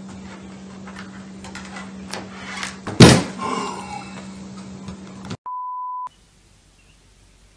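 A hard-shell guitar case lid slammed shut by a cat pushing it down: one loud thud about three seconds in, over a steady low hum and light rustling. Near the end comes a short, steady electronic beep, then near quiet.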